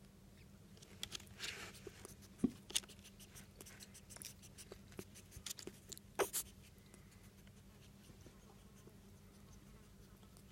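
Faint scratching and small clicks of a pet rat moving about on a surface, with two sharper bursts about six seconds in.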